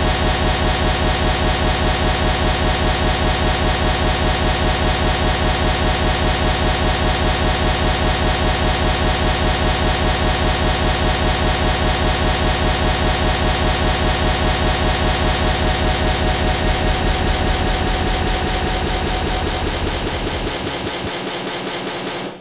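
Loud, harsh, distorted buzzing noise with a fast, steady pulse, fading over the last few seconds and cutting off at the end.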